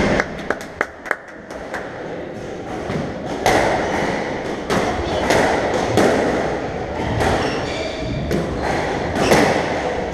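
Squash rally: sharp cracks of the ball off the rackets and the court walls, a quick run of them in the first couple of seconds, with players' shoes scuffing and squeaking on the wooden floor.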